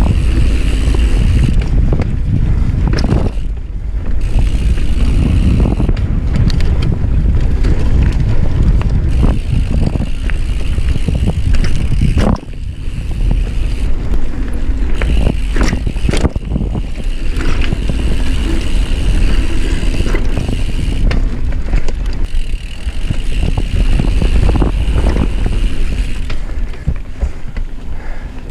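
Mountain bike ridden along a dirt singletrack, heard from a chest-mounted camera: steady wind rumble on the microphone and tyre noise on the dirt, with frequent clatter and knocks from the bike over bumps.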